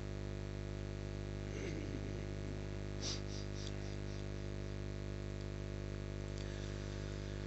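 Quiet, steady electrical hum from a public-address sound system, with a few faint, brief indistinct sounds around two and three seconds in.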